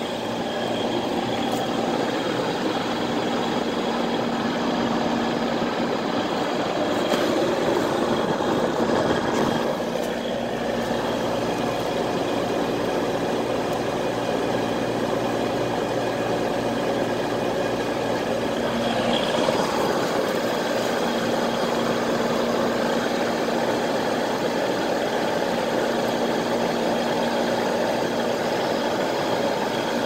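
Central air conditioner outdoor condensing units running: a steady compressor hum under the whoosh of the condenser fan.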